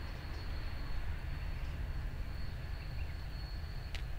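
Distant train approaching along the line: a steady low rumble, with a thin, steady high-pitched insect tone over it and a single brief tick near the end.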